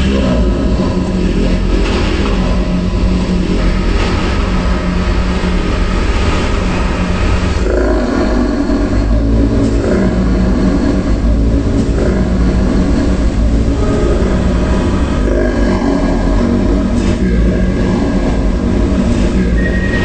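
Designed horror sound effect of an evil, demonic presence speaking: a loud, continuous deep drone with layered steady tones over a heavy low rumble, the tones shifting about eight seconds in.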